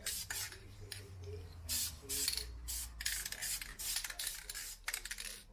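Plastic sheeting masking around a freshly sprayed brake caliper crinkling and rustling in irregular bursts as it is handled and pulled back by hand.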